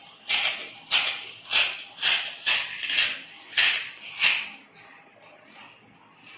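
Close-up chewing of momos: about eight chews in a steady rhythm, roughly two a second, stopping about four and a half seconds in.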